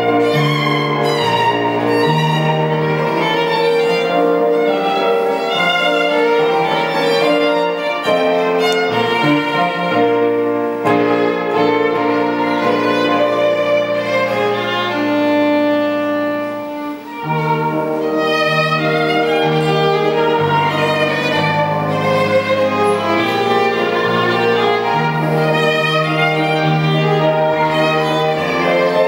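Live violin melody with electronic keyboard accompaniment, the keyboard holding low bass notes under the bowed line. The music thins briefly about seventeen seconds in, at a phrase break, then carries on.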